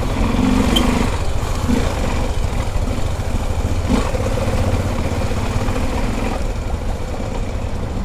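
Honda XR 250 Tornado's single-cylinder engine running steadily at low revs.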